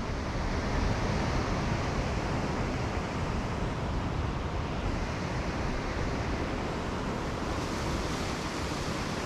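Steady wash of ocean swell breaking against a sea-cliff rock ledge below, mixed with wind on the microphone.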